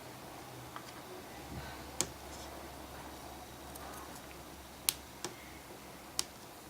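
Small parts and tools being handled on an iPhone's opened display assembly, giving a few short, sharp little clicks and taps spaced a second or more apart, three of them louder than the rest.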